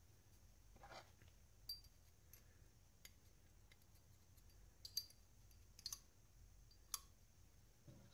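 Faint, scattered metal clicks of an AR-15 bolt and bolt carrier being fitted back together by hand, about half a dozen light clicks spread over several seconds with near silence between them.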